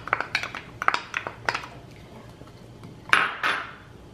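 Diced onion poured from a glass bowl into a frying pan of melted butter: a quick run of light taps and clicks as the pieces land and the bowl knocks. About three seconds in comes a brief, louder scrape of the wooden spoon in the pan.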